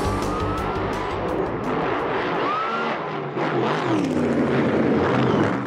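Drag-racing funny car engine heard from inside the cockpit, loud, its pitch dipping and rising as it revs.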